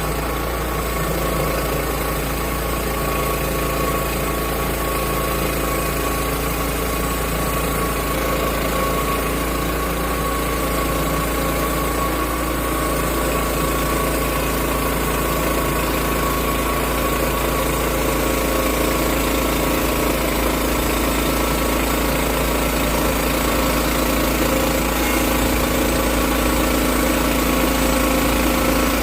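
Engine of a portable log sawmill running steadily at constant speed.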